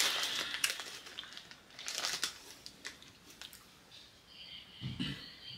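Crinkling and crackling of a plastic snack wrapper being handled as a piece is taken out, in clusters at the start and again about two seconds in, with a short low sound near the end.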